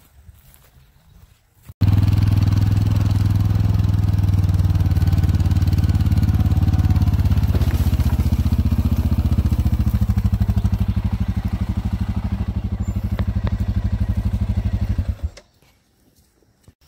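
A small engine running steadily with a deep, pulsing hum. It cuts in abruptly about two seconds in and cuts out abruptly near the end.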